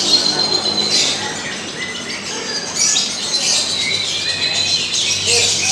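Lovebirds singing in dense, high-pitched chattering twitter, with several birds overlapping.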